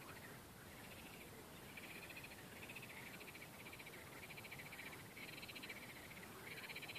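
Frogs calling from the lake: faint, rapidly pulsed trills in repeated bouts of about a second each.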